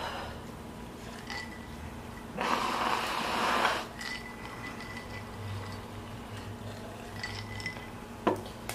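A woman blowing her nose into a tissue, one long noisy blow about two and a half seconds in; her nose is running from the capsaicin burn of the hot chili nuts. A single knock near the end.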